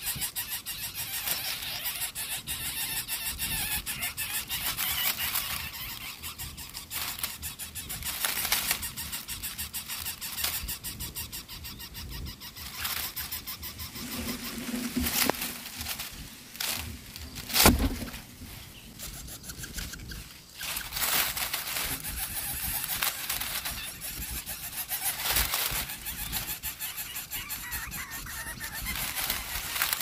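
Lesser coucal nestlings giving continuous raspy, squealing begging calls for food. The calls come in a rapid, steady chatter. A single sharp thump stands out about eighteen seconds in.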